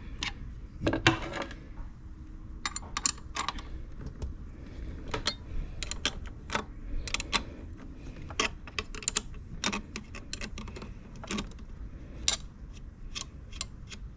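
Irregular small clicks and taps of metal parts and hand tools being handled while a portable generator's carburetor is put back together.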